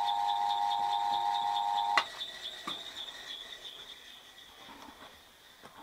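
Old electric motor of a South Bend lathe, fed through a static phase converter, running with a steady hum that sounds normal. About two seconds in, a click and the hum stops at once, leaving a fainter high whir that dies away and a few light knocks.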